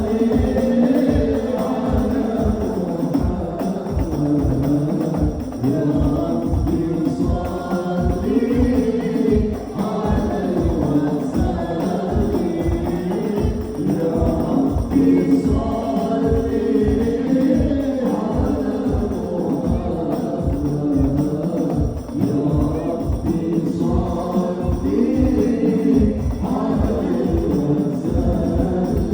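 Sholawat, an Islamic devotional praise song, sung in a melismatic line with other voices joining, over a steady, evenly repeating drum beat.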